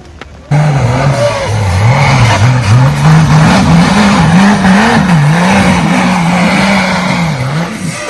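Off-road vehicle engine revving hard under load, its pitch rising and falling repeatedly, with a dense rushing noise over it. It starts abruptly about half a second in and fades near the end.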